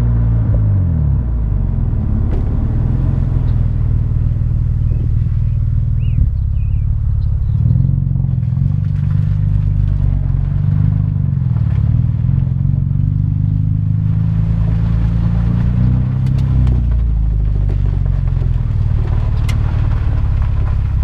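Exhaust of a 2009 Mitsubishi Eclipse GT's 3.8-litre V6 under way. The revs drop sharply about a second in, then the car cruises with a steady drone that rises and falls gently a few times.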